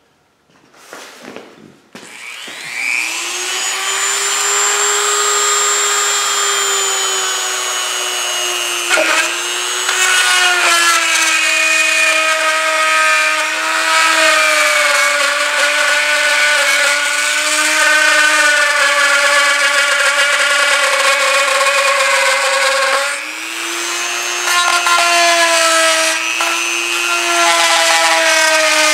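Dremel rotary tool with a plastic cutting bit spinning up about two seconds in, then running with a steady high whine as it cuts out the end of a rubber lock-on handlebar grip. Its pitch dips briefly twice, as the bit bites into the grip.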